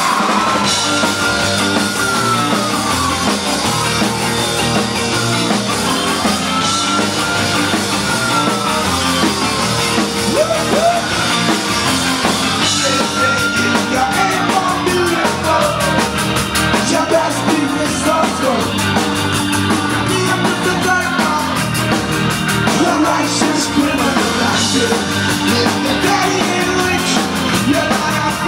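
Live punk band playing loud through a club PA, heard from the crowd near the stage: drums, bass guitar and guitars under a shouted lead vocal. A high line swoops up and down in pitch three times in the first half.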